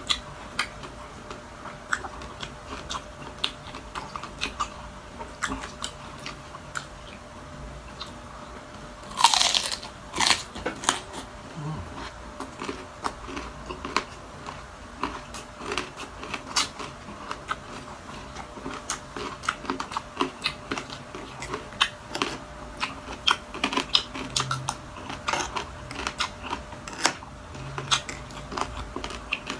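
Close-miked chewing of crispy deep-fried chicharon bulaklak (pork intestine), many sharp crunches in a row. One especially loud crunching bite comes about nine seconds in.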